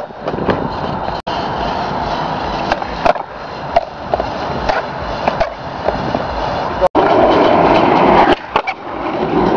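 Skateboard wheels rolling over rough concrete, a steady rumble that grows louder near the end, with a few sharp clicks from the board.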